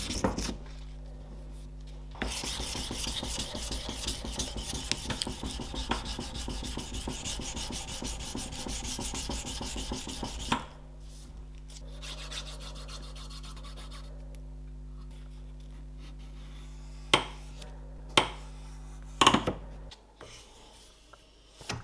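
Sandpaper rubbed in quick back-and-forth strokes over a wooden knife handle, hand-sanding it, stopping about halfway through. A steady low hum then remains, with a few sharp knocks near the end.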